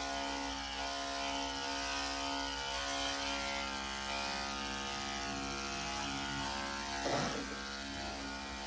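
Corded electric pet clippers running with a steady motor buzz while clipping a dog's coat. About seven seconds in, a brief louder sound rises above the buzz.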